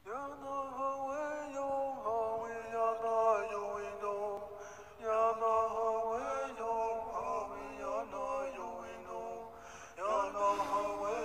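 A man chanting in long held notes with slides between them, in phrases that start afresh about two, five and ten seconds in.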